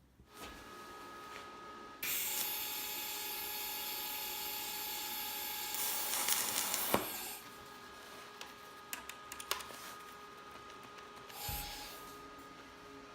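TIG welding arc: a steady hiss starts abruptly about two seconds in and cuts off suddenly about five seconds later, followed by a few light clicks and taps.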